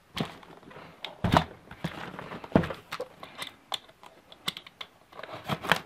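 Hands handling and tapping a taped cardboard shipping box: scattered light clicks and knocks, with two louder thumps about one and a half and two and a half seconds in.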